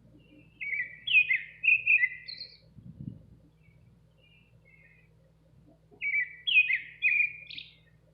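Nightingale singing: two loud phrases of quick, sweeping whistled notes, one starting just after the beginning and one about six seconds in, with a few soft short notes in the pause between.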